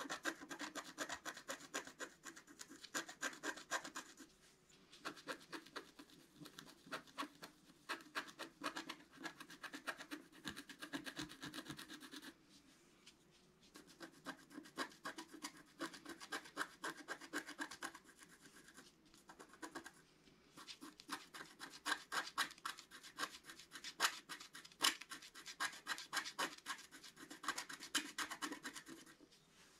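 Wooden stylus scratching the black coating off a scratch-art sheet in runs of quick, short strokes, broken by a few brief pauses.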